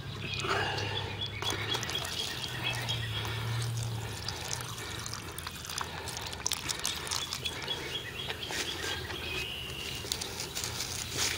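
Muriatic acid pouring from a plastic gallon jug and splashing into a shallow plastic tub of metal scraps. It fizzes and crackles faintly as it hits the metal. A bird chirps in the background.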